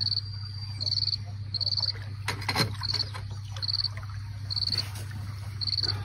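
Insect chirping in short, evenly spaced high pulses, a little more than one a second, over a steady low hum.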